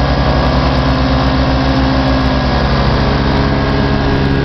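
Tri-Flyer hovercraft's engine running steadily at low speed, with an even low pulse.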